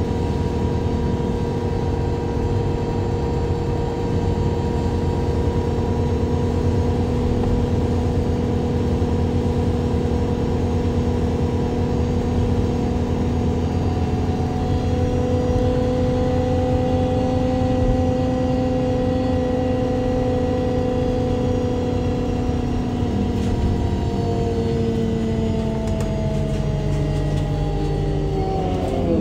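Natural-gas engine and Voith automatic drivetrain of a MAN Lion's City G CNG articulated bus, heard from directly above the engine, running with a steady drone of several tones. In the last few seconds the tones glide down in pitch.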